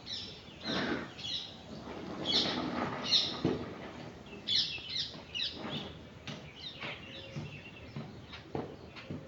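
Birds chirping: many short, quick calls in irregular clusters, some overlapping, with a few short knocks among them.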